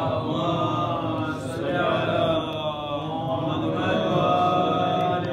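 A man chanting a marsiya, an Urdu elegy, solo in long drawn-out melodic phrases with gliding pitch.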